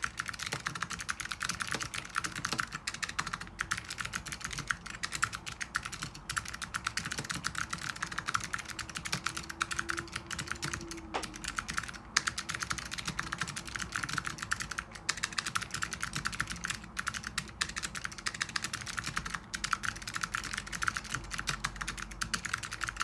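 Continuous fast typing on a mechanical keyboard with clicky Alps SKCM Blue switches on a carbon plate: a dense, unbroken run of sharp keystroke clicks.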